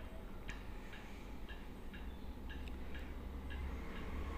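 Pestle pounding raisins and black pepper in a small metal mortar (kuttani): even strikes about two a second, each a short click with a light metallic ring.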